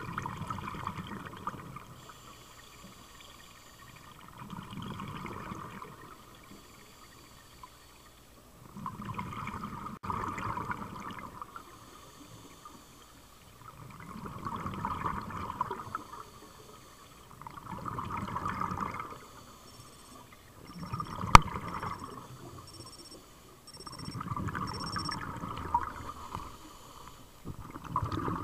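Scuba regulator exhaust bubbles heard underwater: a burst of bubbling about every four to five seconds, each lasting a second or two, in the steady rhythm of a diver's breathing. A single sharp click about two-thirds of the way through.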